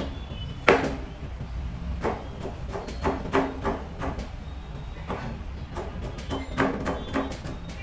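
Chef's knife slicing a carrot on a plastic cutting board: irregular knocks of the blade striking the board, the loudest about a second in and a quicker run of light chops near the end, over a steady low hum.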